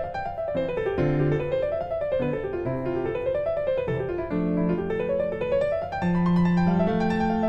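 Background piano music: flowing arpeggios rising and falling over held bass notes.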